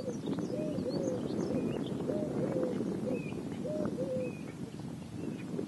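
Eurasian collared dove cooing in repeated three-note phrases, the middle note the longest. Over it a common starling sings high whistles and a dense crackling chatter.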